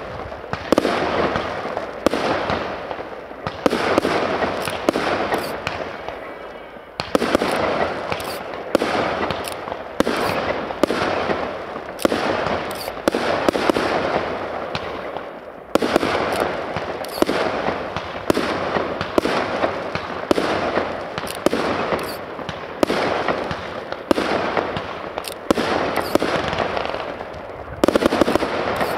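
Aerial fireworks going off in a steady sequence, a sharp bang about every second and a half. Each bang is followed by a spray of crackling from the bursting stars.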